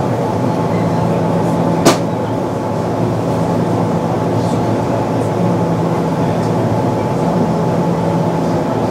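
A Kintetsu 8600 series resistor-controlled electric train running, heard from inside the car: a steady rumble of wheels on rail with a constant hum. One sharp click comes about two seconds in.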